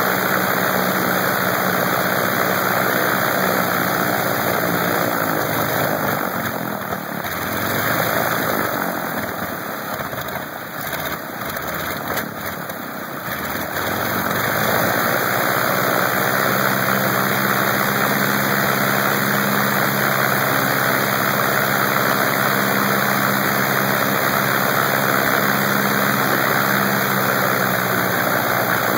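Lycoming R-680 nine-cylinder radial aircraft engine running on a test stand with its propeller turning. Its sound dips and wavers for several seconds partway through, then runs steady again.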